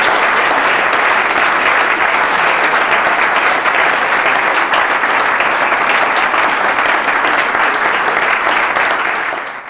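Audience applauding steadily, fading out and cutting off near the end.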